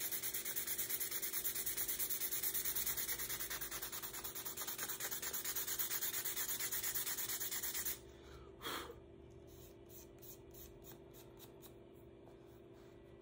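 Sandpaper rubbed by hand in rapid back-and-forth strokes over a wooden guitar headstock and its freshly glued abalone inlay, scuffing the glue down flush. The sanding stops abruptly about eight seconds in; a short squeak and a few light clicks follow over a steady low hum.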